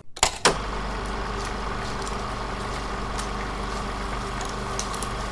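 Old-film sound effect of a film projector running: a steady hum and hiss sprinkled with faint crackles, opening with a couple of sharp clicks.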